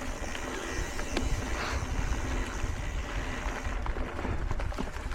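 Wind buffeting the microphone in an unsteady low rumble, with faint clicks and rattles, as on a mountain bike ride.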